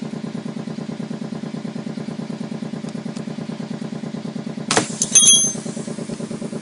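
A steady machine hum with a fast, even pulsing throughout. Nearly five seconds in, a sharp metallic clank with a brief high ringing, as the puncture screw is pried out of the tyre with a tool.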